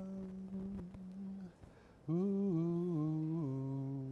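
A man humming a slow tune in long, steady held notes, stepping between pitches, with a short break about a second and a half in.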